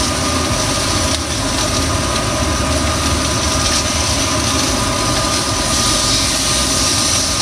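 Steady fan noise: an even hum with a hiss over it that does not change.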